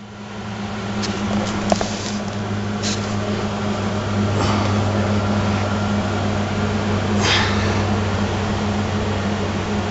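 A steady low machine hum that builds up over the first second and then holds, with a few faint knocks and rustles.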